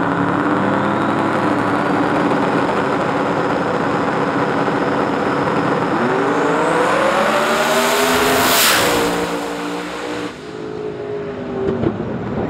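Two drag-race cars' engines running hard at the starting line, then launching: the engine note climbs steeply about six seconds in, peaks sharply as the cars run past about two and a half seconds later, and falls away afterwards.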